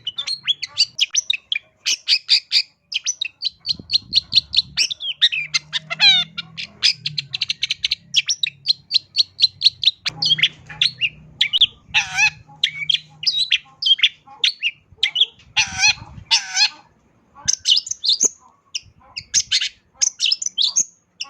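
Long-tailed shrike (cendet) singing a rapid, varied song of quick chirps and trills, packed with mimicked notes of other birds, with a short pause about three-quarters of the way through.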